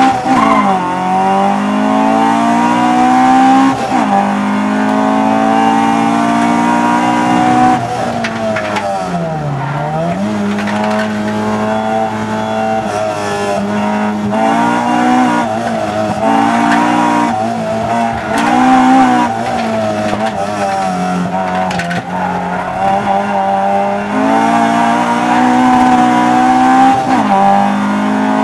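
Honda B18 four-cylinder engine in a Civic, heard from inside the cabin, revving hard under full throttle. Its pitch climbs through each gear and drops sharply at the upshifts, near the start, around four seconds in and near the end. About ten seconds in the revs fall deeply and then climb back as the car slows for a corner and accelerates again.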